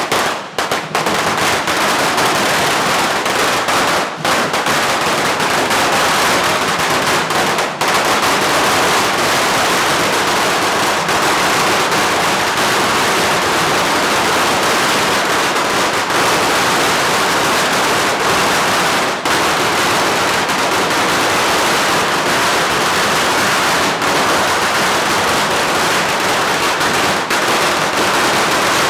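A long string of firecrackers going off in a continuous, rapid crackle of bangs, with a few brief dips in the first several seconds.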